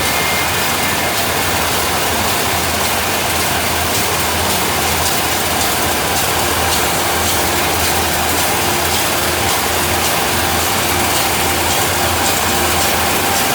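Sawmill running steadily: a loud, even machine noise with faint steady tones through it, as the mill cuts through a large ash log.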